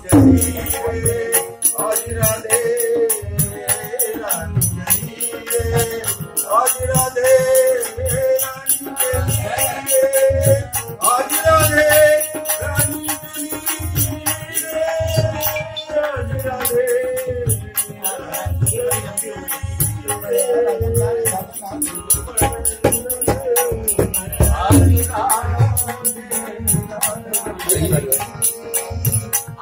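A man sings a Kumauni classical Holi song in long, wavering held notes. He is accompanied by regular drum beats and a steady jingling percussion keeping time.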